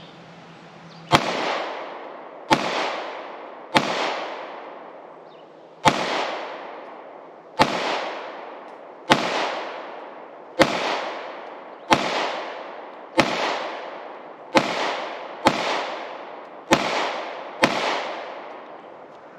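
Thirteen 9mm gunshots fired at a steady pace, one every second or two, each followed by a long echo. The small Tannerite targets are not detonating: they just powder.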